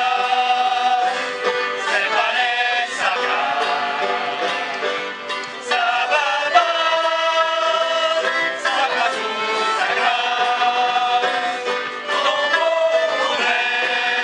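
A choir of men and women singing a Breton sea song to banjo accompaniment, in phrases of long held notes.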